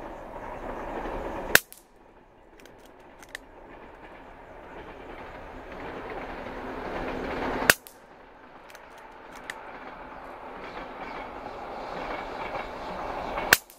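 Three shots from a PCP air rifle, fitted with new springs, firing valve and hammer, fired in quick succession about six seconds apart, each a single sharp crack. Between shots a steady hiss builds up and falls away right after each shot, with a few faint clicks.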